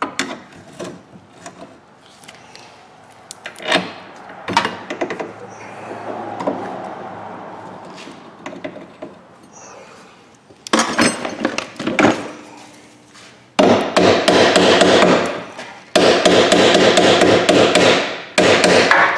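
Hand tools knocking on steel rear suspension parts. A few scattered knocks and clicks come first, then about halfway through, loud runs of rapid metal-on-metal strikes, each run lasting a couple of seconds.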